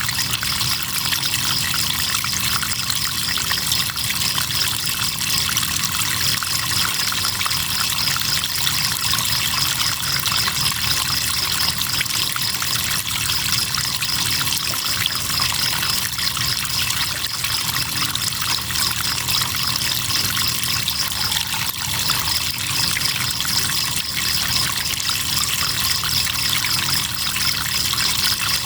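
River water trickling and flowing steadily, with crickets chirping in a fast, even, high-pitched pulsing trill over it.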